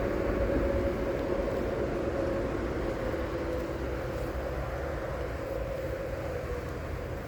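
Steady rumble of vehicle traffic with a faint engine hum that sinks slightly in pitch.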